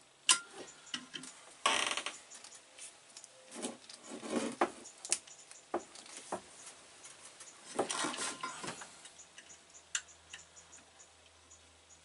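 Plastic sheath being cut and torn off a three-core power cable by hand: irregular clicks and short scraping rasps, the loudest about two seconds in and again near eight seconds, thinning out towards the end.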